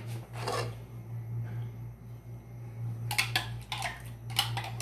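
Metal spoon stirring and scraping against a pan of milky vermicelli payasam: a scrape about half a second in, then a few more near the end, over a steady low hum.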